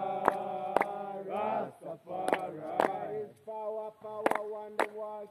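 A group of men chanting together in long, sustained lines. Sharp percussive strikes keep time, falling in pairs half a second apart about every two seconds.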